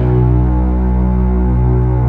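Dramatic background music: long sustained low notes that swell louder right at the start.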